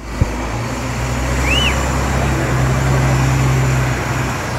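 Fire engine's diesel engine running steadily with a deep hum. A short thin whistle rises and falls about a second and a half in.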